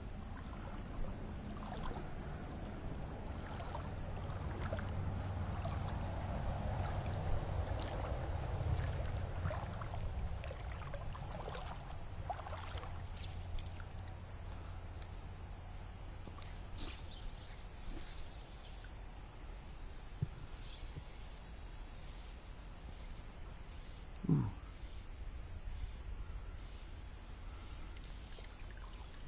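Kayak being moved along a shallow creek: paddle and water sounds swirling and splashing against the hull, with scattered small knocks and a steady high hiss. Near the end, one short squeak falls in pitch.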